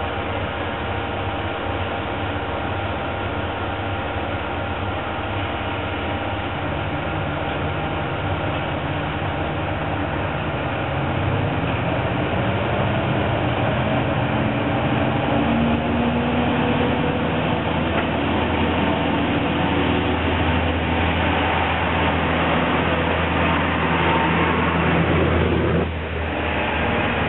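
Diesel railcar engine running steadily, then revving up with a rising pitch and getting louder from about seven seconds in as the train starts to move off.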